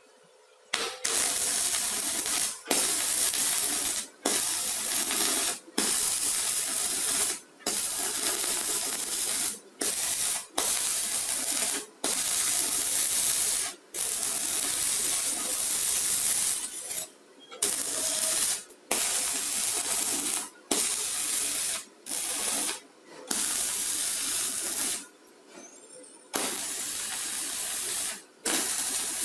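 Stick-welding arc from a mini 250 stick welder's rod electrode, sizzling loudly as the rod burns. It starts about a second in, then breaks off and is restruck many times, every one to two seconds.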